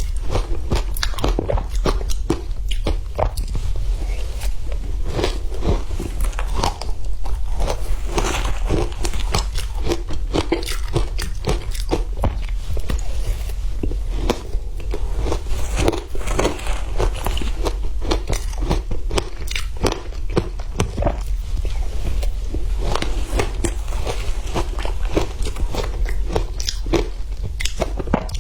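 A person biting and chewing frozen matcha ice close to the microphone: a dense, continuous run of sharp crunches and cracks, with a steady low hum underneath.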